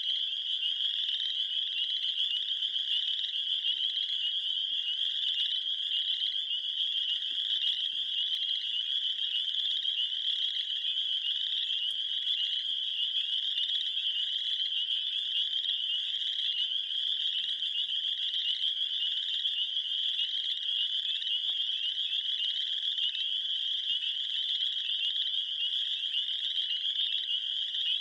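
A steady, dense chorus of high-pitched trilling calls from many small animals, unbroken throughout.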